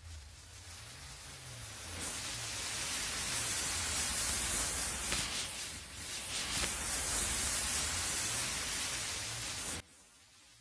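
Masses of matches flaring and burning in a chain reaction: a steady hiss that swells about two seconds in and cuts off suddenly near the end.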